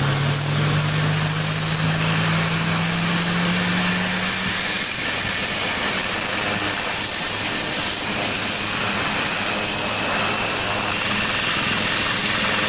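HAL ALH Mk III (Dhruv) helicopter running with its rotor turning, its twin Shakti turboshaft engines giving a loud steady noise. A high turbine whine slowly rises in pitch, and a low hum fades out about four seconds in.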